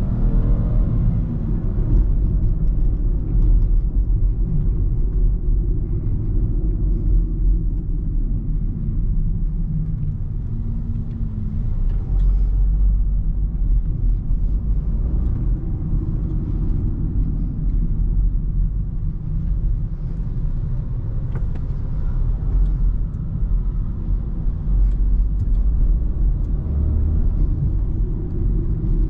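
Interior sound of a BMW 2 Series Active Tourer (F45) with its 1.5-litre 140 hp petrol engine, driving: a steady low engine hum and road rumble, with the engine note swelling briefly about ten seconds in and again near the end.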